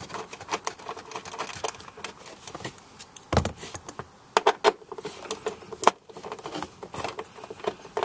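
Irregular clicks and light rattles of plastic wiring-harness parts being handled and fitted back together by hand. There is a dull thump about three seconds in.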